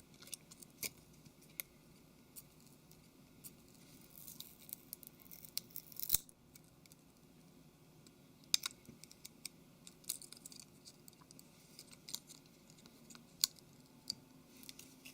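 Faint, scattered small clicks and scraping of a thin blade working a phone's small USB circuit board loose from its adhesive, with a longer peeling, scraping stretch about four to six seconds in.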